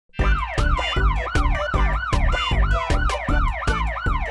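Cartoon police-car siren in a fast yelp, its pitch sweeping up and down about three times a second over a steady beat. It starts suddenly just after a moment of silence.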